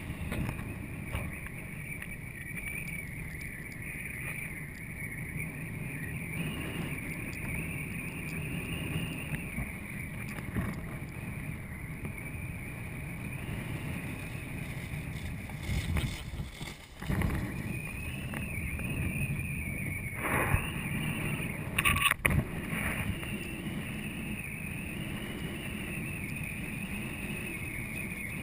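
Water and wind rushing past a windsurf board under sail, picked up by a camera on the rig: a steady hiss and rumble with a wavering high whine over it. A few sharper knocks and splashes in the second half, as the board hits chop.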